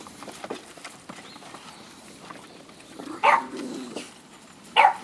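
Dogs wrestling in rough play: two short, sharp barks about a second and a half apart, with light scuffling in between.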